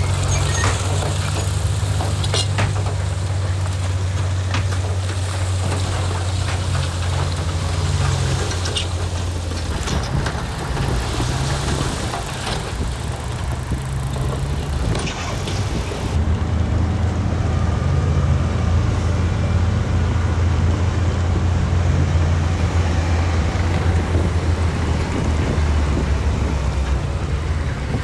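Heavy diesel earthmoving machinery running steadily with a deep engine hum, with occasional sharp clanks and rattles in the first half. The engine note changes abruptly about halfway through.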